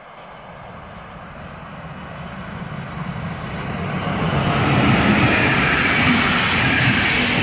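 Class 139 electric locomotive hauling a container train approaches and passes, its noise growing steadily louder over the first five seconds, then the container wagons' wheels rolling by on the rails.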